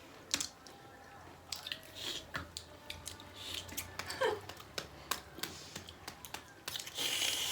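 Mouth sounds of people chewing and biting into sour lemon pieces: scattered short, wet clicks and crunches, with a brief vocal squeak about four seconds in.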